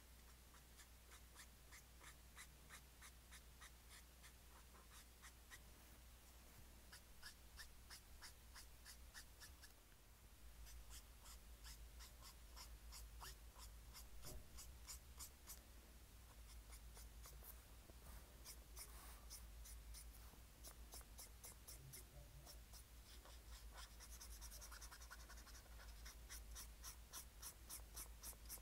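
Faint, quick strokes of a pen on paper while drawing, several scratchy strokes a second.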